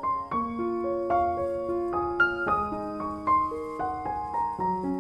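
Background piano music: a slow melody of single notes over chords.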